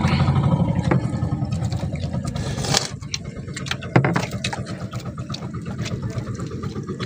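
A small engine on the boat running steadily with a fast low throb, with a couple of sharp clinks, the loudest about four seconds in.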